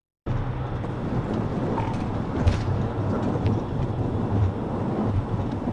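Steady rumble of a moving car, engine and road noise, cutting in abruptly about a quarter second in, with a few faint knocks.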